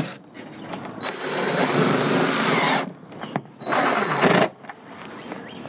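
DeWalt 20V cordless driver running in two bursts, about two seconds and then under a second, driving a screw into the eave trim.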